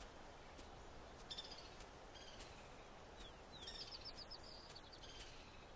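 Faint outdoor ambience with small birds chirping: a short chirp about a second in and a quick run of high chirps near the middle.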